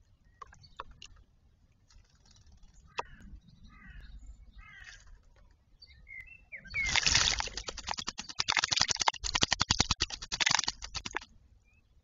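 A bird bathing in a shallow stone bird bath, beating its wings in the water in a loud run of rapid splashes that starts about seven seconds in and lasts about four seconds. A few soft bird calls come before it.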